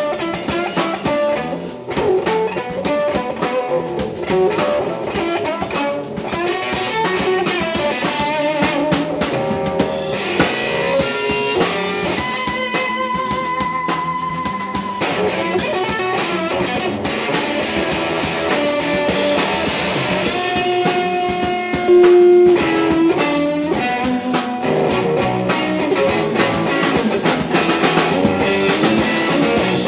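Live blues-rock trio playing: electric guitar lead lines with held, wavering notes over bass guitar and a drum kit. One guitar note stands out louder about two-thirds of the way through.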